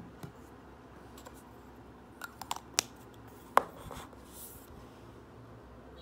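Small objects set down on a desk and a glass mirror tray: a few light clicks and taps, with the loudest, a sharp tap, about three and a half seconds in. Among them is a plastic lip balm tube being stood on the tray.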